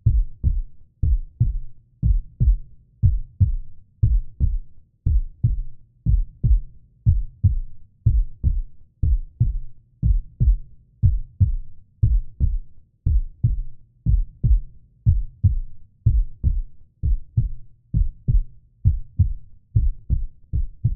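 Heartbeat sound effect: a steady lub-dub double thump about once a second, low and deep.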